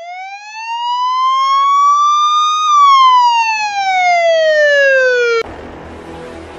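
A single siren wail: one long tone rising slowly in pitch for about three seconds, then falling, and cut off suddenly near the end, where background music takes over.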